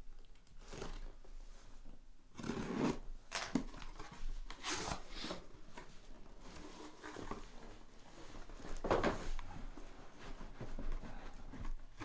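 Packing tape torn off a sealed cardboard shipping case and the cardboard handled, in several separate noisy bursts, the loudest about two and a half seconds in and again near nine seconds.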